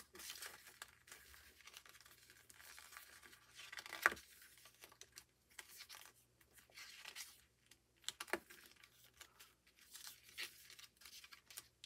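Faint rustling and scraping of a paper-and-card album digipack being handled and opened, with a sharp tap about four seconds in and another a little after eight seconds.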